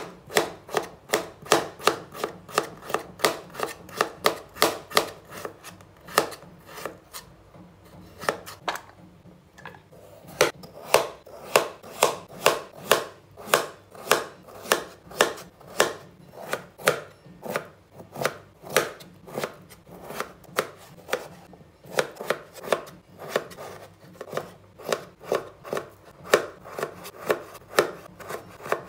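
Kitchen knife chopping raw potato into thin strips on a wooden cutting board: quick, even knocks of the blade, about three a second, with a brief pause about nine seconds in.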